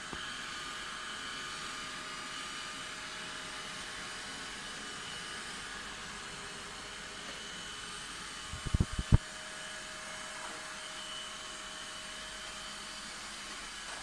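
Roborock S55 robot vacuum running, a steady whirr of its suction fan with a few high, steady whining tones. A quick cluster of low thumps a little under nine seconds in.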